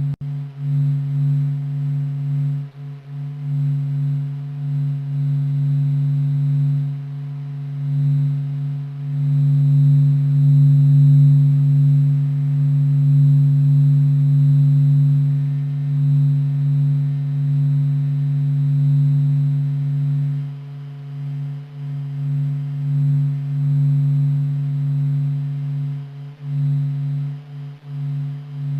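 NASA's sonification of the sun's vibrations: oscillations recorded by the Solar and Heliospheric Observatory over 40 days, sped up into a steady low drone with a fainter overtone above it. It swells louder about a third of the way in and eases back later on.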